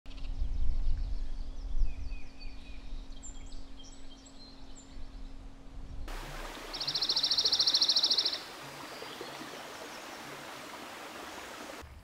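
Woodland birdsong: scattered high chirps and calls over a low rumble. Then, about seven seconds in, a loud, rapid, even trill of a dark-eyed junco lasting about a second and a half, followed by steady outdoor hiss.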